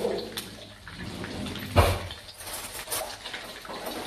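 Meatballs sizzling in a frying pan as a steady crackling hiss, with a few knocks and clatters of kitchen things being handled; the loudest comes about two seconds in.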